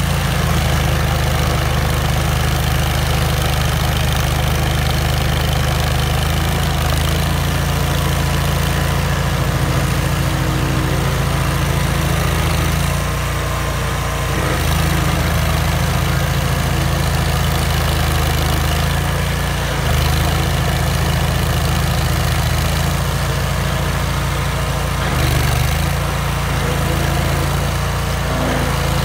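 Vermeer stump grinder's engine running steadily under load while its cutter wheel chews into a stump and the soil around it. The engine note shifts briefly a few times as the load changes.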